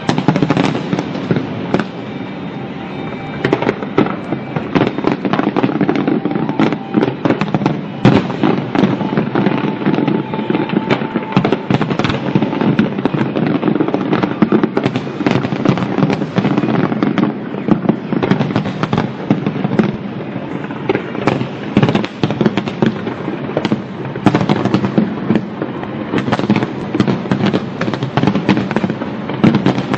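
Fireworks display going off in a dense, unbroken barrage: many sharp bangs and crackles a second over a continuous rumble.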